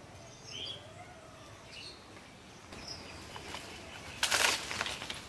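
A long bamboo pole knocking hog plums from the tree: a loud rustle of shaken leaves and branches for about half a second, about four seconds in. Faint bird chirps come before it.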